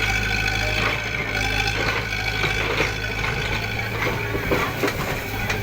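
Heavy machinery's engine running steadily, fading about four seconds in, with a few sharp knocks near the end.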